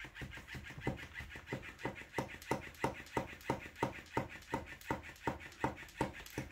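Battery-powered plush flopping-fish cat toy flapping its body, knocking on a wooden table in a steady rhythm of about three taps a second.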